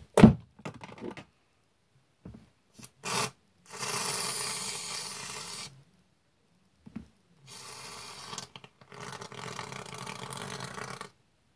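Aerosol can of shaving foam spraying out foam in three hissing, sputtering bursts: about two seconds long some four seconds in, then a short one and a longer one in the second half. A single thump comes just at the start, with a few small clicks before the first spray.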